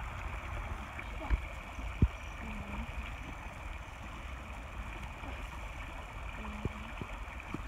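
Small creek running over rocks, a steady rushing of water, with a low rumble underneath and a few sharp knocks, two of them in the first couple of seconds.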